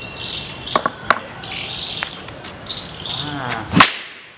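A bamboo lathi swung down hard and struck once near the end, a single sharp crack, over steady high chirping in the background.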